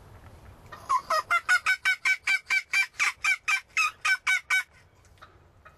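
Wild turkey yelping: a fast, loud run of about sixteen short yelps, about four a second, starting about a second in and breaking off after about three and a half seconds.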